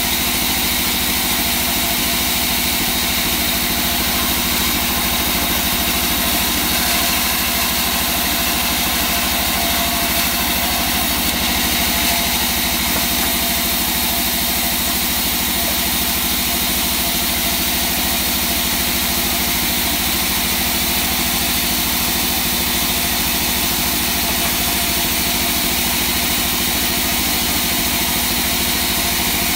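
Large sawmill band saw running steadily while wangkal hardwood boards are fed through it and resawn into strips.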